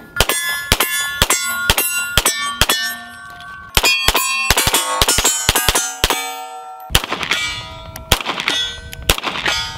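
CZ Shadow 2 pistol fired in quick strings at steel targets, each sharp shot followed by the clang and ring of a struck steel plate. The shots come at about two a second, then faster, with two short pauses between strings.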